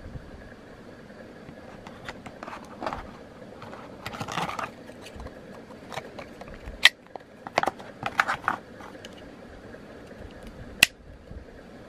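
Cardboard packaging and a plastic power adapter being handled: rustling and scraping as a small accessory box is lifted out of the tray and opened, with two sharp clicks, one past the middle and one near the end.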